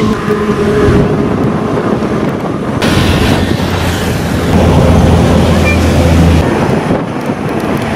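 Wind buffeting the microphone outdoors: a loud, rough rumble and rush. A low steady hum joins for about two seconds past the middle.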